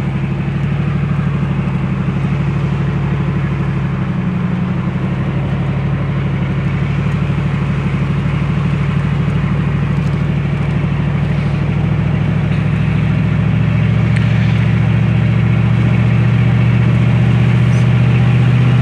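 Truck engine and tyre noise heard from inside the cab while driving along a paved road: a steady drone that shifts in pitch about four seconds in and again past the middle, growing a little louder toward the end.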